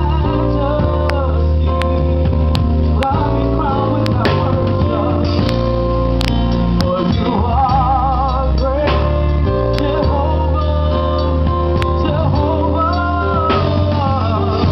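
Live gospel singing: several women's voices singing together over a band with bass and guitar. The lead voice holds notes with a wavering vibrato around the middle.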